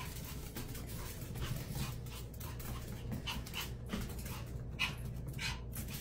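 Small chihuahua panting in quick, uneven breaths.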